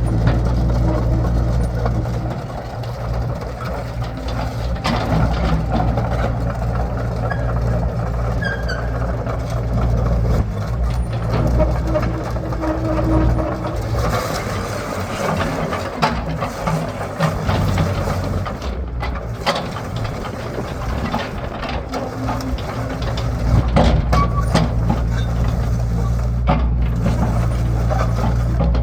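Heavy diesel construction machinery running with a steady low engine drone that eases off in the middle and builds again near the end, with scattered knocks and clanks.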